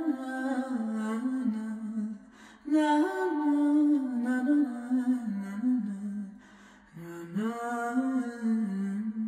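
A single voice sings a wordless melody with no accompaniment. It comes in three phrases with short breaks between them, each phrase drifting downward in pitch.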